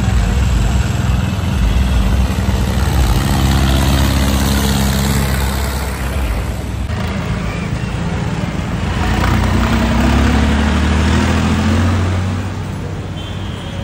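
Diesel tractor and truck engines running in slow road traffic, their engine pitch dropping a few seconds in and rising again later. The sound changes abruptly about seven seconds in.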